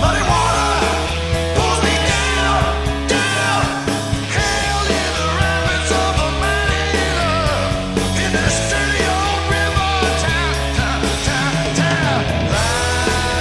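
Rock song playing: a singing voice over a full band with a heavy, steady bass line.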